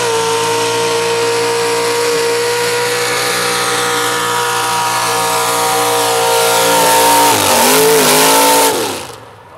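Mud-drag vehicle's engine held at high revs at full throttle, its pitch steady for about seven seconds, wavering near the end, then dropping off sharply as the throttle is released.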